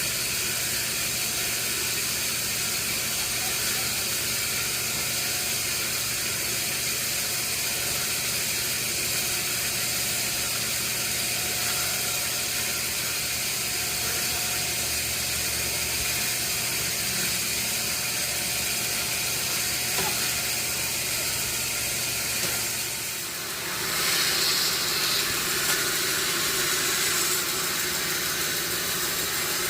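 Sawmill machinery running steadily with a low hum and a high hiss. About three-quarters of the way through, the sound dips briefly and comes back brighter and a little louder.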